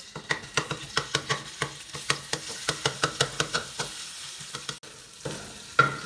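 Garlic paste frying in oil in a kadhai as it is stirred. The oil sizzles, and the stirring utensil clicks and scrapes against the pan several times a second for the first few seconds. Then the sizzle goes on more quietly, with one louder knock near the end.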